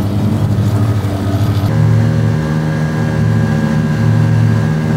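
Motorboat engine running steadily while the boat is under way, its note shifting about two seconds in.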